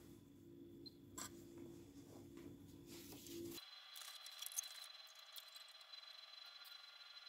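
Near silence: faint room tone with a few faint, scattered clicks.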